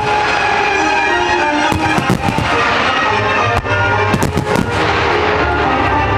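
Aerial firework shells bursting in quick clusters, about two seconds in and again around four seconds in, over music with held tones.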